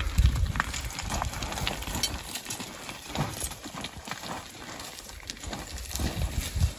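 A person's footsteps crunching and slipping on loose, dry, stony ground and brushing through dry scrub, in irregular steps. A low rumble sits on the microphone at the start and again near the end.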